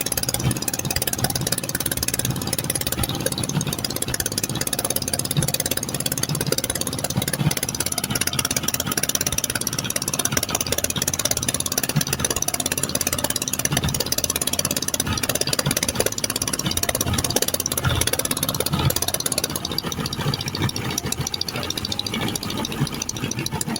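Boat engine running steadily under way, with a constant hiss over it.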